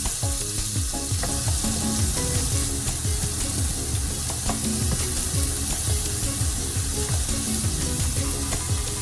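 Food sizzling in hot oil in a frying pan, with a steady crackling hiss and occasional stirring.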